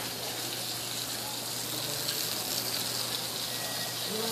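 Water running from a garden hose onto a tiled floor, a steady hiss.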